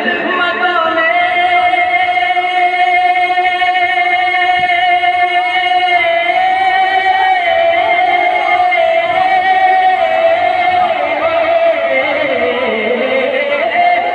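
A man singing a naat into a microphone, holding one long steady note for about ten seconds; near the end his voice dips and then climbs again.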